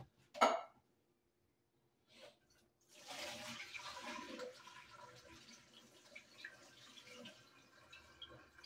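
A short sharp sound just after the start, then a rush of running water starting about three seconds in and slowly tapering off.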